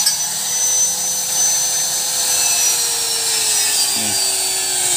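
Electric power tool running with a steady whine that sinks slightly in pitch near the end.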